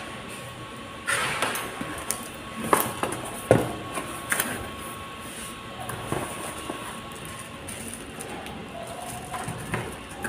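A cardboard box being opened and handled, with scraping and a series of sharp knocks as plastic-wrapped light fittings are lifted out; the loudest knock comes about three and a half seconds in. A faint steady whine runs in the background and stops about three quarters of the way through.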